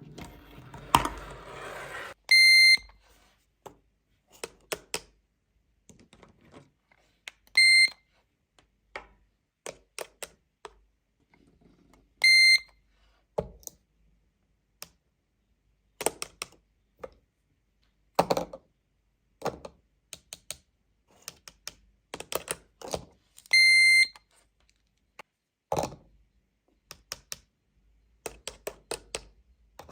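Toy cash register beeping four times, each a single short high-pitched beep. Between the beeps come plastic clicks and taps of buttons being pressed and small items being handled, with a rustle of packaging in the first two seconds.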